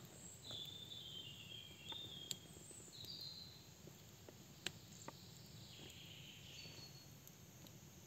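Faint crackling of a wood campfire: a handful of sharp pops and snaps, two of them louder, about two and four and a half seconds in. A few short high chirping phrases sound in the background.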